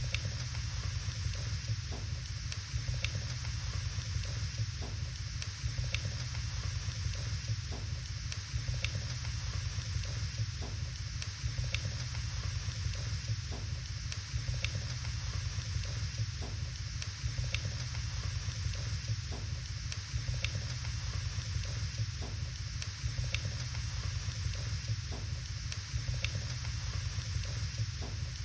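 Wood fire burning in a fireplace: a steady hiss over a low rumble, with small crackles and pops scattered irregularly about once a second.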